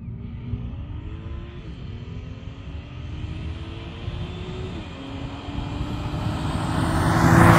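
Car engine accelerating hard through the gears on a drag run. The note climbs, drops at two upshifts, and grows steadily louder as the car approaches, passing loudest near the end.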